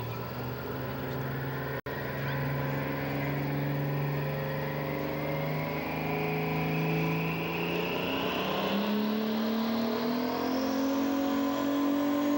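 Pulling semi truck's diesel engine running at held revs, then revving up from about two-thirds of the way in as the truck launches into the pull against the sled. A high whine climbs steadily in pitch throughout.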